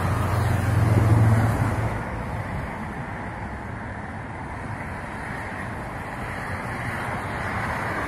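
Road traffic noise, steady, with a motor vehicle passing loudest about a second in.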